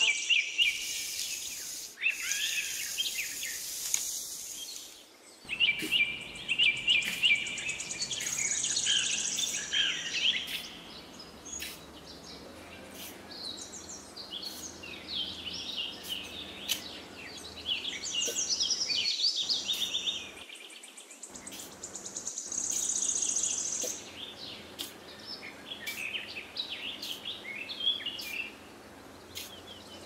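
Small birds chirping and twittering in many short high calls, with sharp short clicks about once a second.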